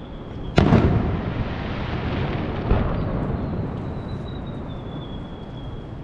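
Fireworks shells bursting: one loud bang about half a second in, then a smaller bang about two seconds later, with a lingering rumble and crackle between them. A faint high whistle slowly falls in pitch behind them.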